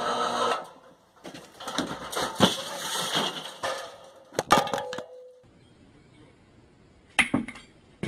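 Clattering and a run of sharp knocks and crashes, with two heavy hits about halfway and a brief ringing tone just after. After a quieter stretch, one more sharp crash comes near the end.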